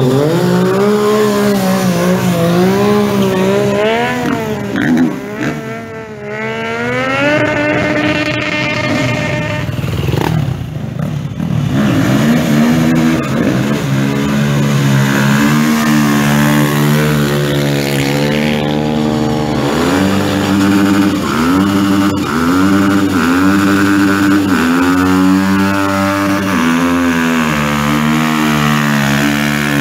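Motorcycle engine revving hard, its pitch swooping up and down. From about halfway it is held high with quick repeated rises and drops, the rear tyre spinning in a smoky burnout.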